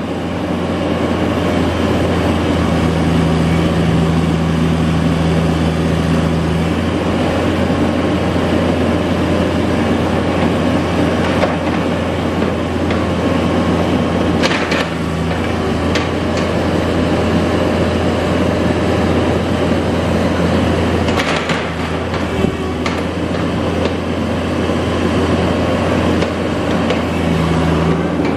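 Cat 305 excavator's diesel engine running steadily while its hydraulics are worked, with a higher hum that comes and goes. A couple of sharp clanks sound partway through.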